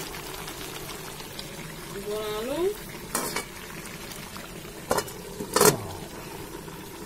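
Chicken pieces frying in a steel kadhai with a steady low sizzle, with a spatula clattering against the pan. Near the end a sharp metal clank rings briefly as the steel lid is set on the kadhai.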